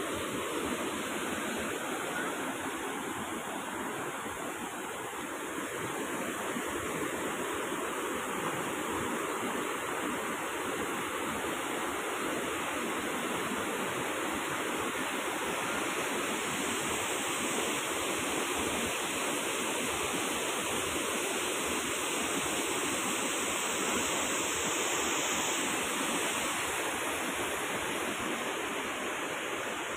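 Fast-flowing river water rushing steadily, the stream swollen by heavy rain.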